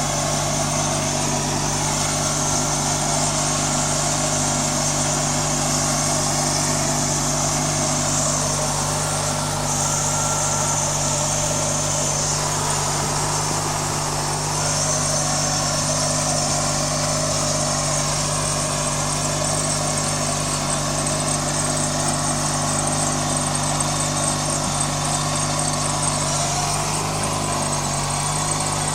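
An 18-horsepower riding lawn mower's engine running steadily at an even speed, with a hissy high end over its low hum.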